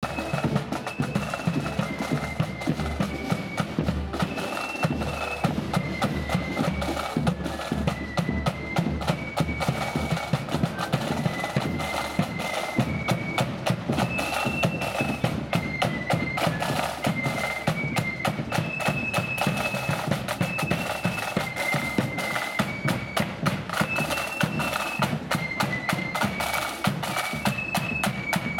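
Marching flute band playing a tune: flutes in unison carry a high melody over rapid side-drum rolls and a steady bass drum beat.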